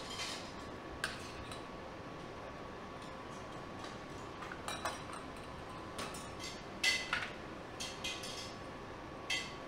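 Scattered light clinks and taps of plating utensils against metal trays and plates, the sharpest a pair about seven seconds in, over a steady faint kitchen hum.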